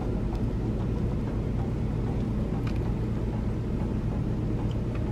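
Steady low hum of a car running, heard from inside its cabin, with a few faint clicks.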